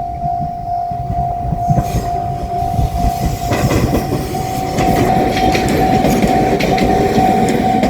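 Japanese level-crossing bell ringing a steady repeating tone while a JR Shikoku 7200 series electric train approaches and runs over the crossing. The train's rumble and wheel clatter build from about two seconds in and are loudest in the second half.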